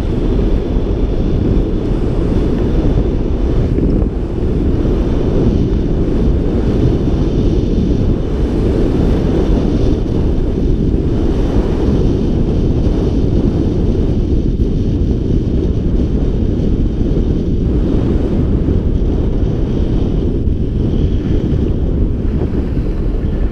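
Wind buffeting a GoPro's microphone during a downhill ski run: a loud, steady, low rumble, with the fainter hiss of skis sliding over groomed snow.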